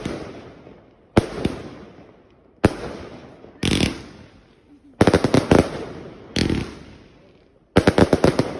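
Retribution multi-shot firework cake firing shot after shot: sharp bangs every second or so, each trailing off in an echo. Twice, about five seconds in and near the end, a shot breaks into a quick string of crackling reports.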